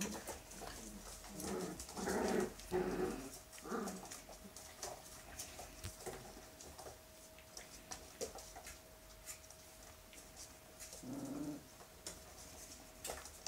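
A one-month-old Hungarian Vizsla puppy gives a run of short cries a couple of seconds in and one more near the end. Small clicks from it mouthing and chewing a hand run throughout.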